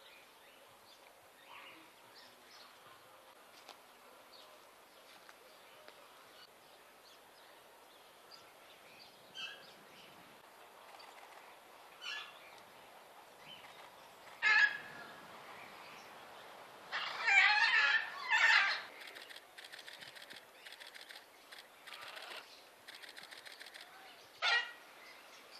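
Birds calling over quiet outdoor ambience: scattered short calls, single loud squawks about halfway through and near the end, and a loud burst of squawks about two-thirds of the way through, followed by a run of rapid repeated chatter.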